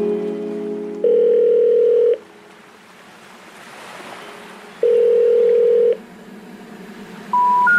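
Electronic beeps: two long, steady, mid-pitched tones, each about a second long, about four seconds apart. Near the end come three short beeps stepping up in pitch.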